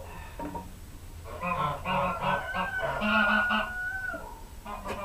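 Domestic fowl calling in a quick run of repeated pitched calls lasting about three seconds, with another run starting near the end.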